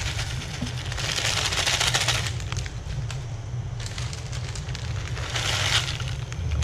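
Crushed dry instant noodles (Indomie Mi Goreng) shaken out of their crinkly plastic packet into a pot of boiling water. Two bursts of crackling rustle sit over a steady low rumble.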